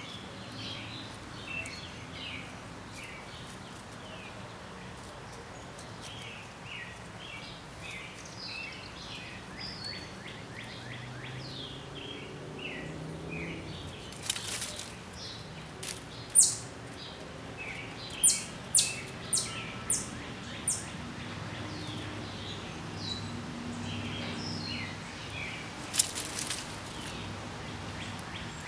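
Small birds chirping over a steady outdoor background, with a run of about five loud, sharp high chips, roughly two a second, past the middle, and two brief louder bursts.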